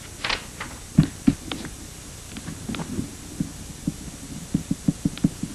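Paper handled briefly, then soft low knocks and taps on a desktop as a pen writes on a sheet, with a quick run of taps near the end.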